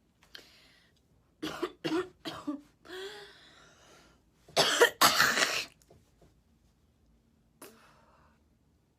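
A woman in a coughing fit: a quick run of four harsh coughs about a second and a half in, a drawn-out strained breath, then the loudest and longest burst of coughing and throat clearing about five seconds in. She puts it down to a chest cold full of phlegm.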